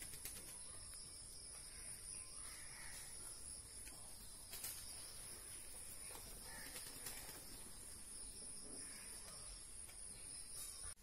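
Faint rural ambience: a steady high-pitched insect drone, with a few faint, distant bird calls now and then.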